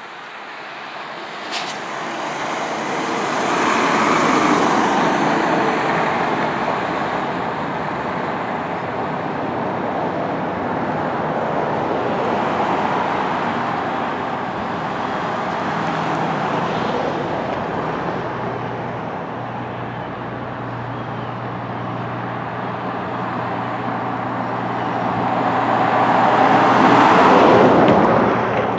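Road traffic passing close by: tyre and engine noise that swells as vehicles go past, about four seconds in and again near the end. A steady low engine hum joins in the second half.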